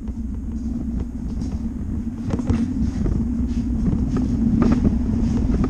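Wheeled metal cart rolling over a concrete floor: a steady low rumble with scattered rattling clicks, growing louder over the first few seconds.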